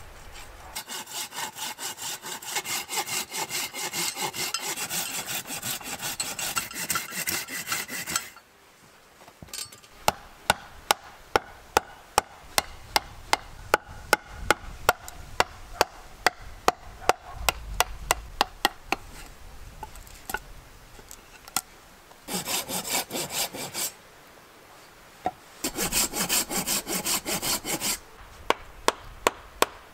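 Handsaw cutting through a log in quick back-and-forth strokes, stopping after about eight seconds. Then a long run of sharp wooden knocks, about two a second, from a wooden baton striking a knife driven into the wood; two more short bursts of sawing follow, and the knocks return at the end.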